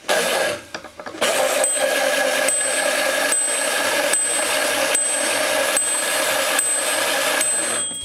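Toy washing machine running: its small motor whirs steadily as the pulsator turns, starting about a second in. Over it the machine's built-in bell rings with a short strike about every 0.8 seconds. The bell was meant to ring only when the wash stops, but on this toy it rings all the time the washer is running.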